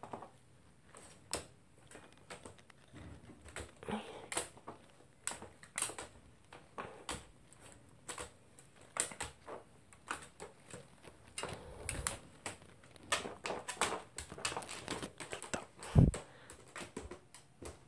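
A small dog eating kibble off a plastic toilet tray: irregular sharp clicks and crunches, with a louder knock about sixteen seconds in.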